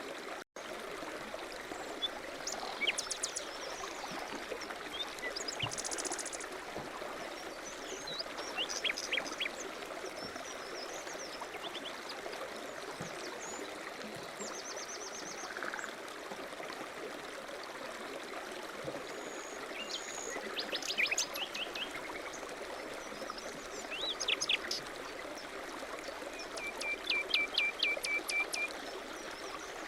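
Small birds chirping and trilling now and then over a steady rush of flowing water. A quick run of repeated notes comes near the end.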